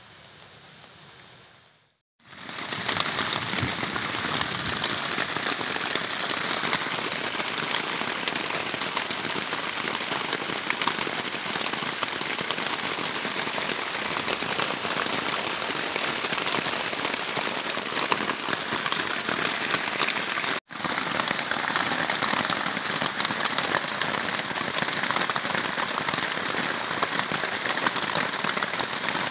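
Heavy rain falling steadily on a plastic tarp shelter: a dense, even hiss of countless drops that comes in loud after a brief gap about two seconds in.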